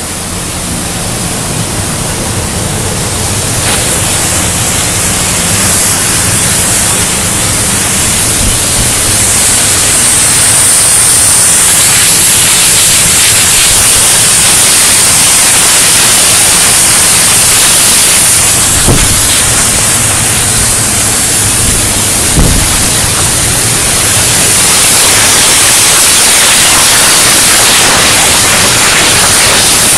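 CNC profile-cutting torch burning through steel plate: a loud, steady hiss that builds up over the first several seconds, then holds. There is a low hum under it at first and two short knocks past the middle.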